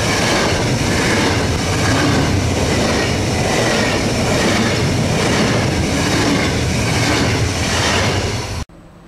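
SBB electric passenger train running fast past the platform, a loud steady rush of wheels on the rails and air along the cars. It cuts off suddenly near the end.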